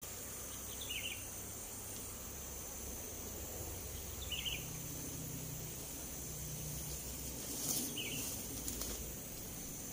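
Steady high-pitched drone of insects, with a short bird chirp three times, spaced a few seconds apart.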